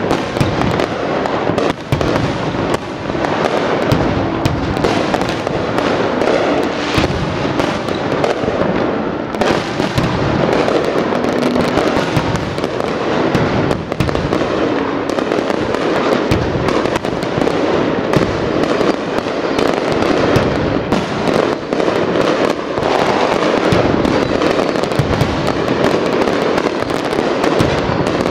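Dense, continuous barrage of aerial fireworks: many overlapping bangs and crackles with no break.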